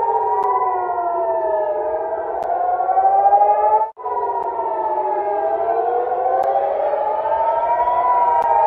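Several civil-defence air-raid sirens wailing together, their pitches rising and falling out of step with each other. The sound cuts out for an instant about four seconds in, then the wailing resumes.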